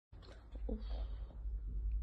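Deep, steady rumble of the M7.8 earthquake shaking the building, growing louder about half a second in, with a brief cry early in the shaking.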